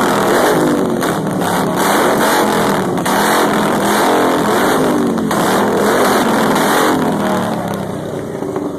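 Several vehicle engines revving together, loud and continuous, their pitch rising and falling, easing off near the end.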